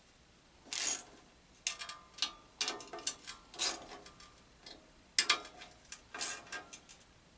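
Metal parts being handled and fitted: irregular sharp clicks and clanks, some with a short metallic ring, coming in small clusters.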